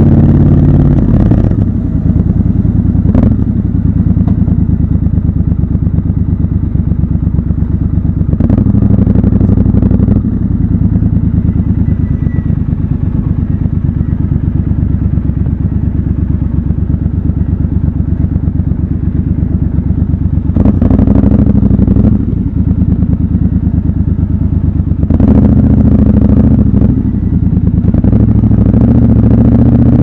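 Triumph Scrambler 1200 XC's 1200 cc parallel-twin engine running at low revs while riding slowly, with a few short louder stretches as the throttle is opened.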